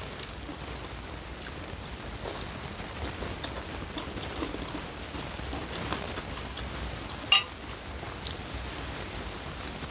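Close-up eating sounds: chewing of noodle soup with small wet ticks, and a few sharp clicks of a metal spoon and fork against the bowl, the loudest about seven seconds in, over a steady hiss.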